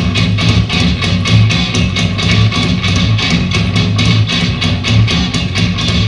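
Loud music with a fast, driving rhythm of about seven strokes a second over a deep bass line.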